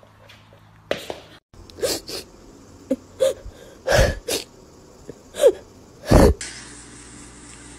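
A parrot giving a run of short, harsh squawks, about eight in five seconds, the loudest near the end.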